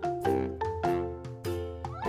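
Background music: a quick run of bright notes, about four a second, over a steady low bass.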